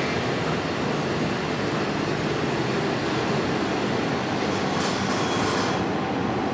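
JR Hokkaido 721 series electric multiple unit departing close alongside, its motors and wheels running steadily on the rails as it picks up speed. A brief brighter hiss comes about five seconds in.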